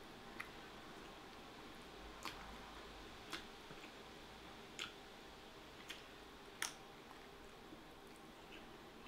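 Faint eating sounds: chewing curry and rice, with about six soft, sharp clicks of a spoon scooping from a glass dish and going to the mouth.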